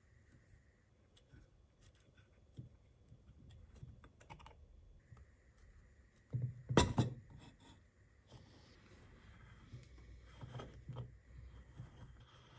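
Small metal clicks and light scraping as the parts of an old pump oil can are handled and taken apart, with one louder sharp knock about seven seconds in. Near the end, faint rubbing of the threaded pump head as it is turned on the can's neck.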